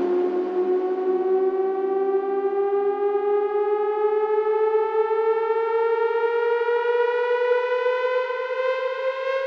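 ASM Hydrasynth digital synthesizer holding one sustained note whose pitch glides slowly and steadily upward, a siren-like rising tone with bright overtones.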